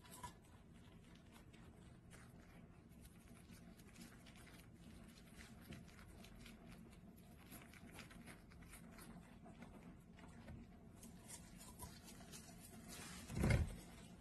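Rock hyrax chewing crisp pea shoots: faint crunching and fine clicking bites. Near the end comes a single short dull thump.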